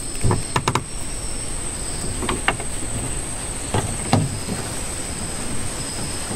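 A steady high-pitched insect drone from the mangroves, with a handful of short sharp clicks and knocks scattered through it.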